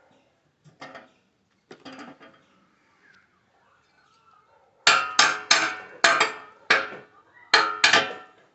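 Pieces of scrap steel being handled: light clinks at first, then about eight sharp, ringing metallic clanks in the last few seconds as the metal is knocked or struck.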